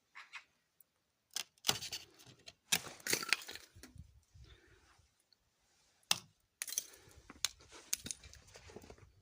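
Ice being struck and broken off with a vacuum cleaner handle: a series of sharp knocks and cracks, each followed by the crackle of breaking ice, starting about a second and a half in, with a hard knock near the middle.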